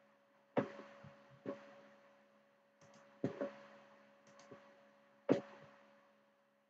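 A series of sharp clicks and knocks, about six strong ones at uneven intervals with a few fainter ones between, each dying away quickly, over a faint steady electrical hum.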